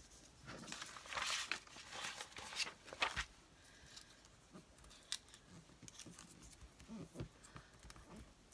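Paper rustling and crinkling as cut-out paper pieces are handled, with scattered light taps and ticks; the rustling is strongest in the first three seconds.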